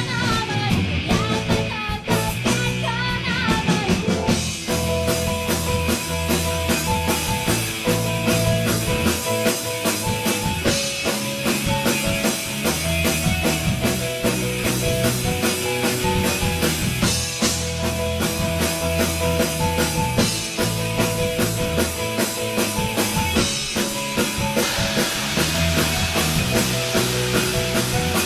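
A rock song playing, with a steady drum-kit beat and guitar.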